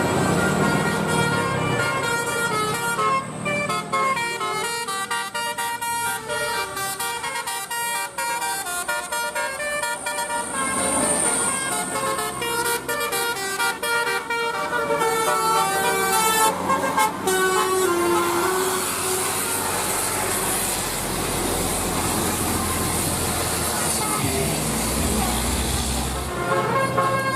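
Basuri telolet musical air horn on a bus playing a quick tune of short stepped notes. In the last third the tune gives way to the low rumble of a large engine.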